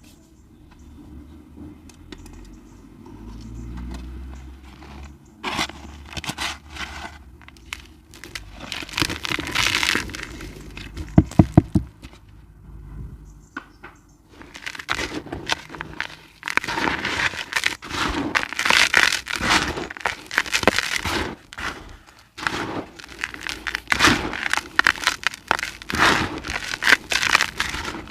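Dry cement being crumbled, giving a grainy, irregular crunching and crackling. It starts sparse and soft, with a quick run of sharp cracks about halfway, then turns dense and loud for the last half.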